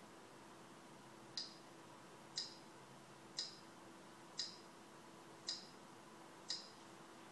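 Short, sharp interface ticks from a media-center TV guide, six of them about a second apart, as the selection steps through the programme grid, over a faint steady hum.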